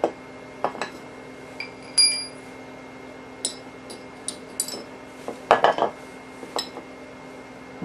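Steel tools and rifle parts clinking and ringing as they are handled on a hard surface: scattered clinks, one ringing knock about two seconds in, a few light high clinks, then a louder cluster of clatter past the halfway point.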